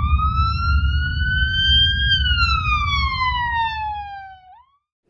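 A siren giving one slow wail, rising in pitch for about two seconds and then falling, over a steady low rumbling noise; both cut off near the end.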